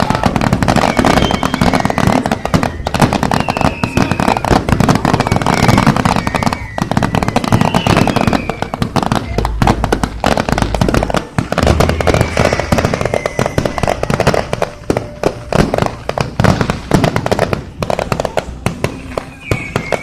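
Fireworks display going off without a break: rapid crackling and popping bursts, with deep booms near the middle and short high whistles every few seconds.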